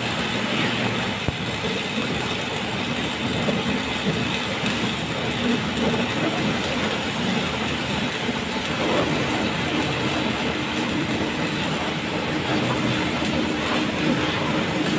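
A backhoe's diesel engine running steadily.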